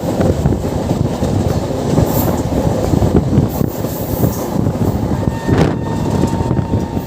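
Double-decker passenger train running along the track, its wheels clattering steadily and loudly over the rails.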